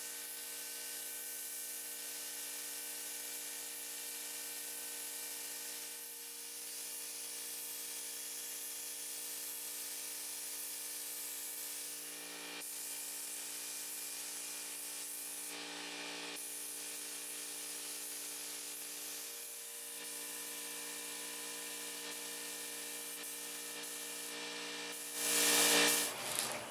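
Compressed-air spray gun hissing as it sprays contact adhesive, with slight dips between passes, over the steady hum of a running air compressor. About a second before the end the hiss turns much louder for a moment.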